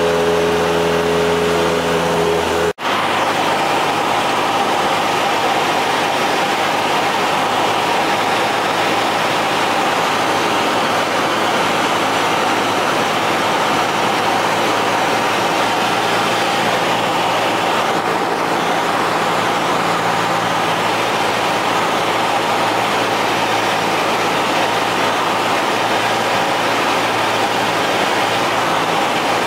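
Cessna 172's piston engine and propeller droning steadily, heard from inside the cabin in flight with rushing airflow. About three seconds in the sound breaks off for an instant and comes back as a smoother, more hiss-like drone.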